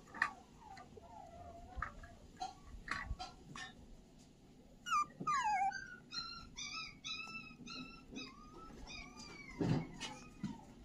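A young pet animal crying. About halfway in comes a falling cry, then a quick run of short, high, squeaky cries, about two or three a second, with light handling knocks around them and a louder knock near the end.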